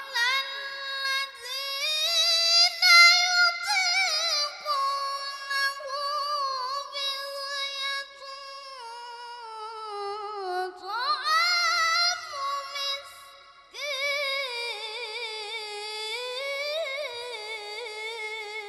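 A boy qari chanting Quranic recitation (tilawah) into a microphone in a high, melodic voice, drawing out long phrases with wavering, ornamented turns. He breaks off briefly about 13 seconds in and then starts a new phrase.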